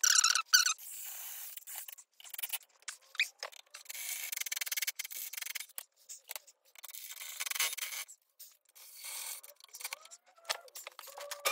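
Cloth rubbing and rustling against the handheld phone's microphone, with scattered small knocks and scrapes as a cordless drill is carried in and set down. There are a few brief squeaks in the first second.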